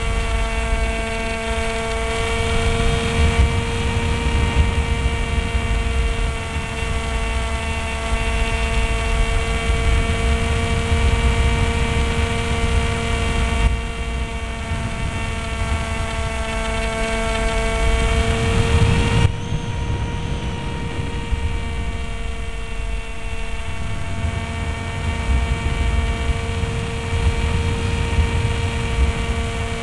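Multiplex Easy Star RC plane's electric pusher motor and propeller running at a steady high whine, heard from a camera on the airframe with wind rush underneath. About two-thirds of the way through, the whine rises slightly and then eases to a slightly lower, duller level.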